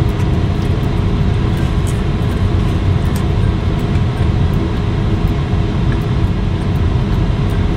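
Steady low rumble of a car heard from inside its cabin, with a few faint clicks over it.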